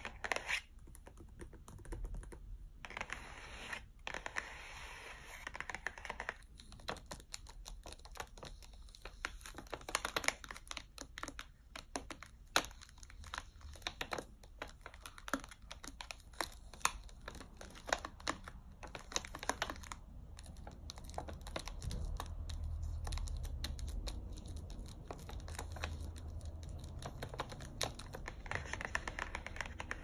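Fingernails tapping rapidly and irregularly on the cardboard packaging of boxed chocolate bars, many quick light taps like typing. In the second half the taps give way to a stretch of denser scratching on the packaging.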